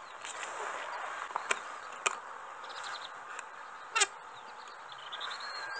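Outdoor ambience at a reed-lined waterway: a steady faint hiss with a few thin bird chirps near the end, and three sharp clicks, the loudest about four seconds in.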